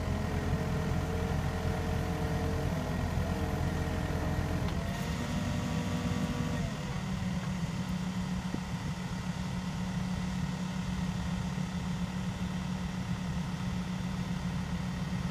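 Komatsu excavator's engine and hydraulics running, powering a hydraulic earth drill that turns a ground screw pile into the soil. About five seconds in the pitch shifts for a couple of seconds, then the machine settles into a steadier, slightly quieter hum.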